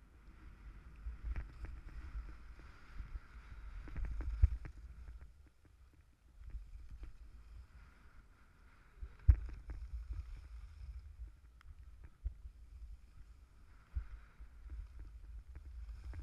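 Skis scraping and hissing over packed snow through a run of turns, the swish swelling and fading every few seconds, over a low wind rumble on the GoPro's microphone. Two sharp knocks about four and nine seconds in, the second the loudest sound.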